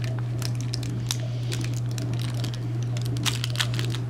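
Knife cutting and prying soft fudge bars in a foil-lined pan: irregular crinkling and scraping of the aluminium foil with soft squishing, over a steady low hum.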